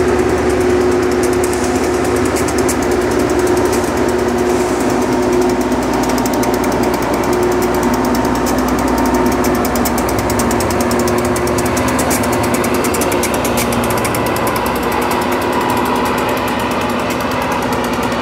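Loram rail grinder train at work, its grinding stones on the rail making a loud, steady, fast grinding rattle over the hum of its engines and motors.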